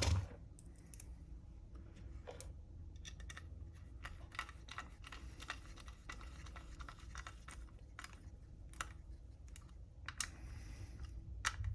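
Scattered light clicks and taps of small screws and 3D-printed plastic parts being handled during assembly, irregular and a few per second, over a steady low hum.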